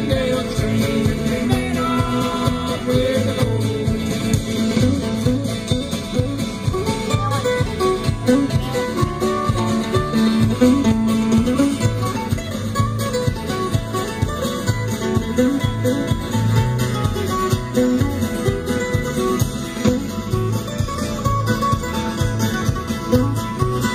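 Live band playing a country-style song: plucked guitar strings over a steady beat.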